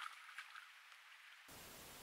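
Faint scattered ticks and patters, then an abrupt change about one and a half seconds in to a steady, even hiss from a trail camera's microphone.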